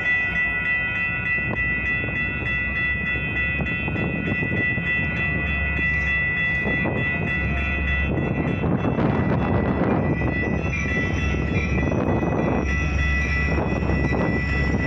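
Metra commuter train passing over a grade crossing: a low rumble of wheels on rails, swelling over the second half, while the crossing signal's bells ring on steadily.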